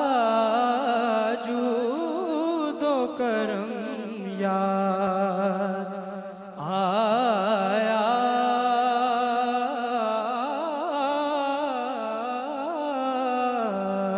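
A young man singing an Urdu naat into a microphone: a slow, ornamented melody with long, wavering held notes over a steady low drone. He breaks off briefly about six seconds in, then goes on.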